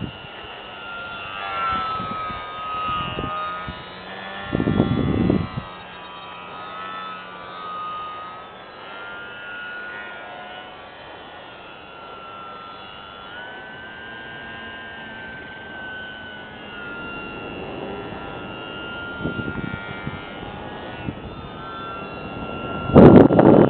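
Hacker A20-26M brushless outrunner motor and propeller of an electric RC aerobatic plane in flight, whining steadily, its pitch slowly rising and falling as the throttle and the plane's distance change. A brief loud rumbling burst comes about five seconds in.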